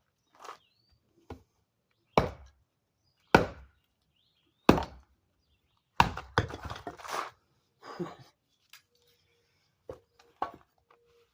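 A large chopping knife hacking into an oak block: four heavy chops about 1.2 seconds apart, with a short clatter of wood after the fourth, then a few lighter knocks.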